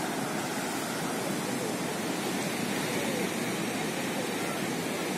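Sea surf: small waves breaking and washing up a sandy beach, a steady rushing noise.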